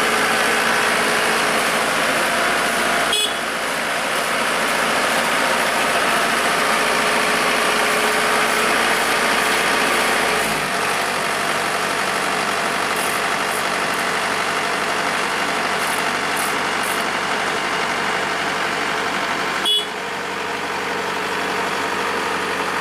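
Kubota DCX 100 rice combine harvester's diesel engine running steadily on the move. There are two sharp clicks, about three seconds in and near the end, where the sound shifts abruptly.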